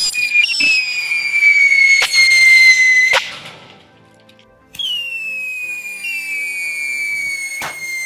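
Whistling firework rockets strapped to toy tractors, burning with a shrill whistle that slowly falls in pitch. The first whistle cuts off abruptly about three seconds in, and a second one starts near five seconds and slides down the same way.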